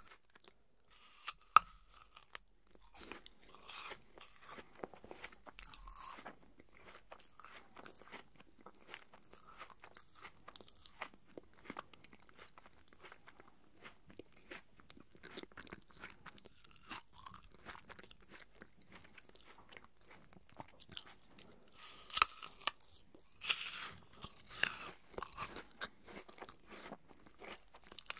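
Close-miked chewing of raw apple pieces: crisp crunches and wet mouth clicks. A sharp bite crunch comes about a second and a half in, and a louder run of crunching comes near the end.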